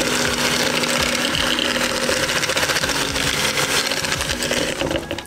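Electric hand mixer running steadily, its beaters churning sugar and coconut oil in a bowl. The motor cuts off near the end.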